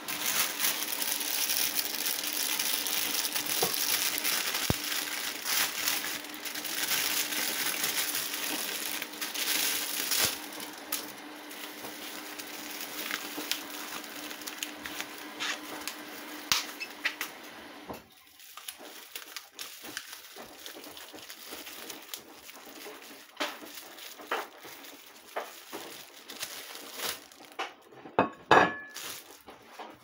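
Plastic pizza wrapping crinkling and rustling as it is torn open, a long dense stretch that then dies down about two-thirds of the way through into scattered clicks of handling, with one sharp clink near the end.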